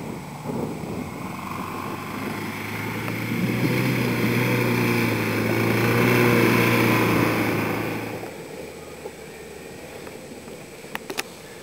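Small engine of an off-road vehicle running at a steady pitch while passing by, growing louder to about six seconds in and fading after about eight. A couple of sharp clicks near the end.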